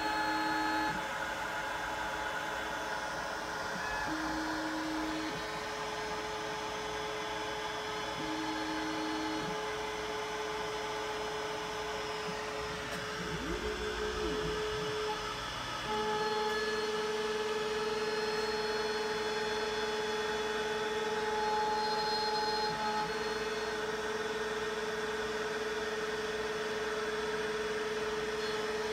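Homemade MDF CNC router milling pockets into a sheet: the spindle runs steadily while the stepper motors driving the belt axes whine at set pitches that switch on and off as the axes move. Partway through a short whine rises and falls, and for the second half a steadier, louder tone holds.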